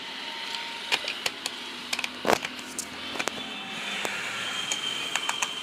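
Screwdriver undoing the small screws of a mini speaker's plastic case: scattered sharp clicks of the tool and the casing being handled.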